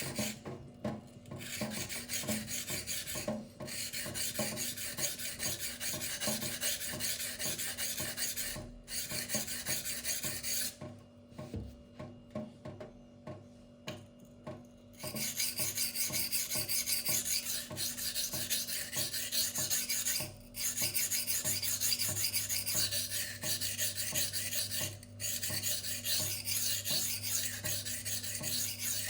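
K110 steel knife blade stroked freehand over a Gritomatic silicon carbide whetstone: a fast run of rasping scrapes with short pauses, and quieter, sparser strokes for a few seconds in the middle.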